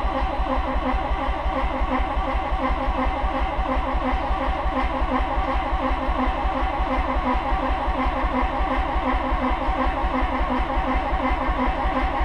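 Starter cranking a 1985 Mazda RX-7's fuel-injected 13B rotary engine in a steady, even rhythm without catching, the accelerator floored and the injection connector pulled: the unflooding procedure for an engine the owner suspects is flooded.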